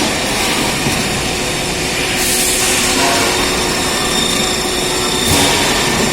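Twin-blade cold saw cut-off and ERW tube mill running: steady, loud industrial machine noise with a faint high tone in the middle and short bursts of hissing about two seconds in and again near the end.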